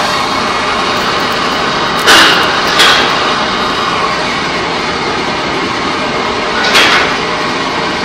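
Pipe coating plant machinery running with a loud, steady industrial din. Three short, sharp bursts cut through it: two close together about two seconds in, and one more near the end.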